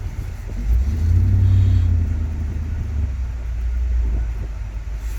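Low rumble of a car driving, with engine and road noise that swells about a second in and then settles.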